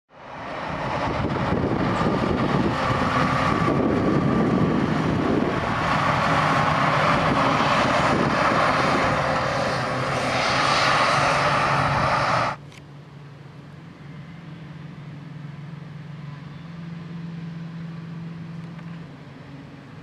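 Farm tractor pulling a silage tipping trailer past at speed: loud engine and running noise with a steady whine. About twelve seconds in it cuts off suddenly to a quieter, steady engine hum of field machinery.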